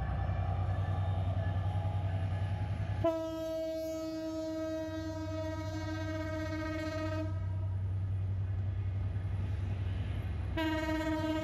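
Diesel locomotive horn sounding one long blast of about four seconds, then a second blast starting near the end, over a steady low rumble of the running train.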